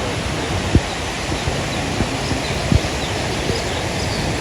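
Steady rush of the waterfall, with a few short low thumps and faint bird chirps in the second half.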